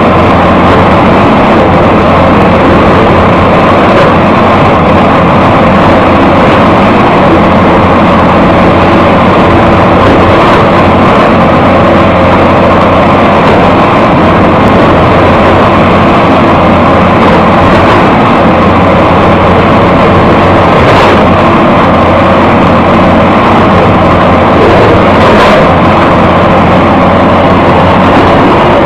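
Lishide crawler excavator's diesel engine running loud and steady under load as its hydraulic ripper tooth tears at a rock face.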